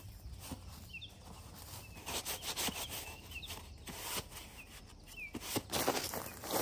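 Rustling and scraping of bark mulch and soil as an old ceramic sink sunk in the ground is worked loose and tipped up, getting louder near the end, with small birds chirping now and then.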